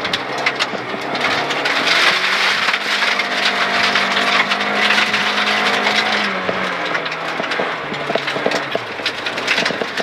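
Rally car engine running hard, heard from inside the cabin, with gravel and stones rattling and clicking against the car's underbody. The engine note climbs slightly, then falls away about six and a half seconds in.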